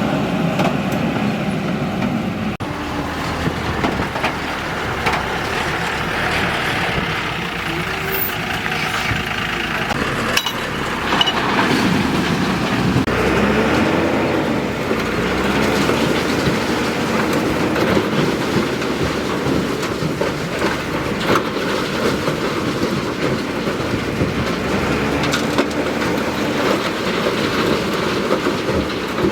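Diesel engine of a JCB 3DX backhoe loader running under load, rising and falling in pitch as it works, with scattered metallic clanks and knocks.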